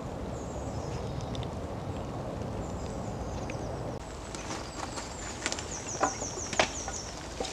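Steady rushing outdoor background with small birds calling high up, including a quick run of repeated high notes. After the cut, logs are handled, giving two sharp wooden knocks, the loudest sounds here.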